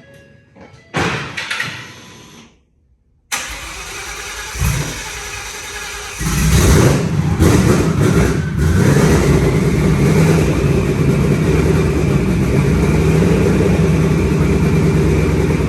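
Twin-turbo Ford Mustang drag car engine turning over for a few seconds, then catching about six seconds in. It picks up briefly and settles into a loud, steady idle: the car is now starting on an older injector tune after refusing to start.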